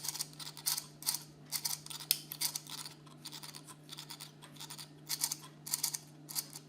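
Irregular scratchy clicks and scrapes, several a second, from the small brushed DC motor of a Renault Scenic electric parking brake being handled and worked after dust was knocked out of it, to check whether it turns more freely. A steady low hum runs underneath.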